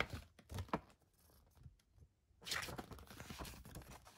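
Paper rustling as the pages of a booklet are leafed through by hand: a few soft clicks at first, then a longer rustle from about halfway in.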